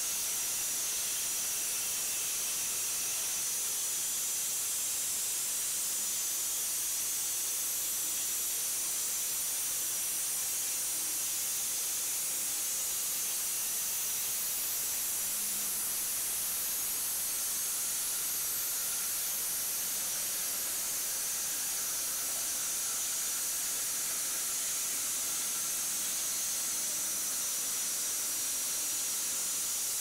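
Electric-motor bandsaw sawmill cutting lengthwise through a walnut log: a steady, high hiss of the band blade in the wood.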